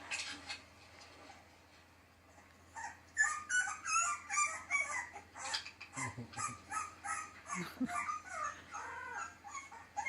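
A puppy whimpering and yipping: a rapid run of short, high cries that rise and fall in pitch, starting about three seconds in.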